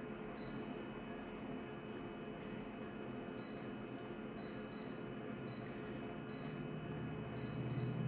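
Short high key-press beeps from a photocopier's touchscreen panel as its settings buttons are tapped, about eight of them at uneven intervals, over a steady low hum.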